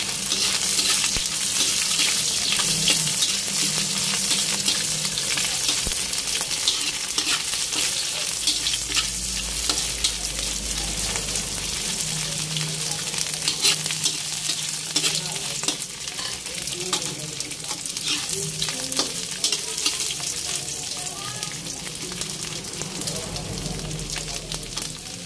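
Dried white anchovies sizzling in hot oil in a steel wok, with a metal ladle scraping and clicking against the pan as they are stirred. The sizzle is strongest in the first few seconds and eases a little toward the end.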